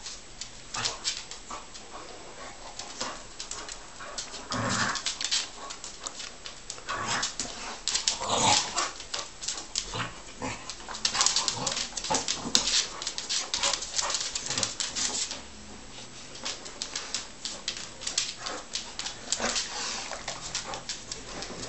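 A shar-pei-type dog and a Tibetan mastiff playing: claws clicking and scuffling on a wooden floor, with a few short whines. The scuffling is busiest around the middle and eases off after about two-thirds of the way through.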